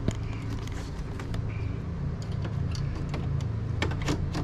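Plastic clicks and knocks of a corrugated exhaust hose being handled and fitted onto the top of an EcoFlow Wave 2 portable air conditioner, a few sharper knocks near the end, over a steady low hum.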